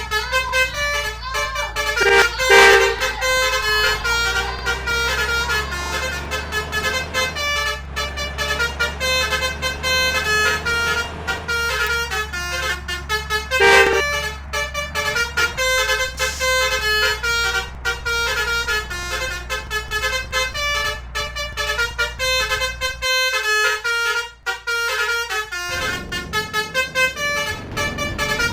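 Indonesian bus 'telolet' horns (Basuri multi-tone electric horns) from a bus convoy, playing quick melodic runs of short notes over and over, with a steady low engine hum beneath. Two louder blasts stand out, one near the start and one about halfway through.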